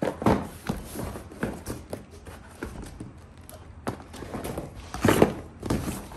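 Cardboard product boxes being handled in and lifted out of a cardboard shipping carton: irregular knocks, scrapes and rustles of cardboard, the loudest knock about five seconds in.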